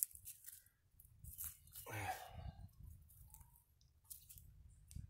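Weeds being pulled by hand from rocky dirt: faint, scattered crackling and tearing of stems, roots and soil, a little louder about two seconds in.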